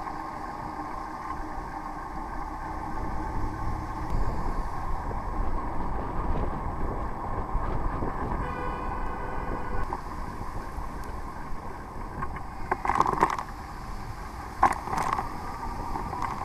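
Wind buffeting the microphone and the rumble of traffic on a wet road while riding a bike in the rain. There is a short horn-like toot about halfway through and two brief noisy bursts near the end.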